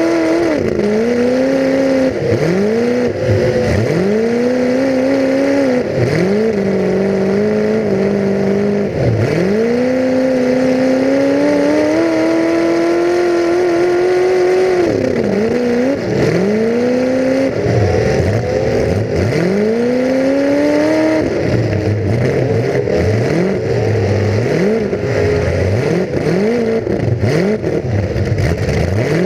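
Full-size demolition derby car's engine heard from on board, revved up and let off over and over, its pitch climbing and falling every second or two, with a longer steady pull at higher revs near the middle.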